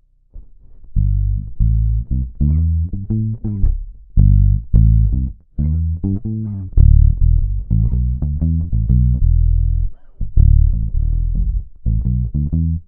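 Ibanez SR-3006E six-string electric bass with its Bartolini NTBT-918 preamp, played clean through a direct input with no effects. After a brief silence comes a run of plucked notes in short phrases, some of them clipped short.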